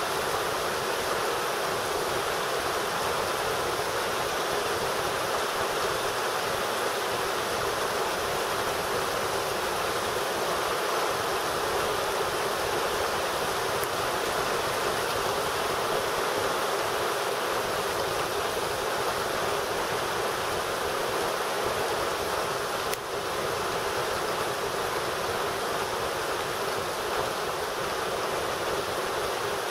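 Heavy rain pouring down steadily, an even hiss with no breaks.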